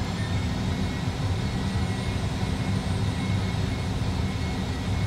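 Simulated jet engines at takeoff thrust and the rumble of the takeoff roll, played by an Airbus A320 full-flight simulator: a steady low rumble with a faint high whine.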